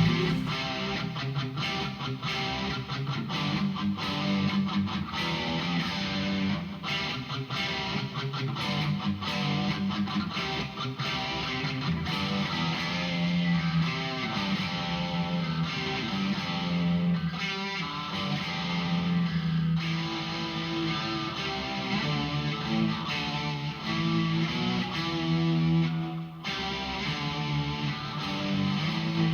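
Electric guitar played through a Behringer V-AMP PRO amp-modelling processor on a distortion preset.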